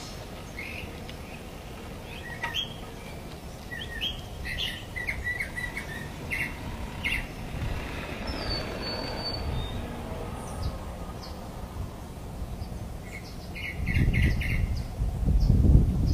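Birds chirping in short calls over a low steady rumble that swells near the end.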